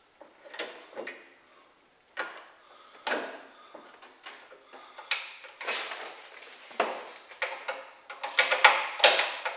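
Diablo snap-lock hole saw arbor being worked in a bench vise: irregular metal clicks, clacks and scrapes, coming quicker near the end. The broken hex pilot bit is stuck fast in the arbor's cam mechanism.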